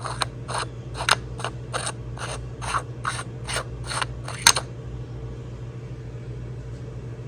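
A run of about a dozen sharp, evenly spaced mechanical clicks, a little over two a second, like a ratchet, stopping about four and a half seconds in. A steady low hum runs underneath.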